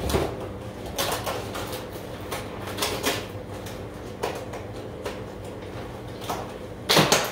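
Kitchen handling clatter: scattered knocks and clicks as things are moved about at the counter, the loudest clack near the end, over a steady low appliance hum.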